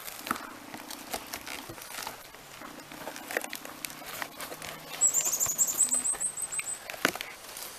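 Dry birch bark crackling and rustling with small snaps as a bark-and-moss wrapping is pulled open by hand. About five seconds in, a bird sings a quick high trill of about a dozen short notes.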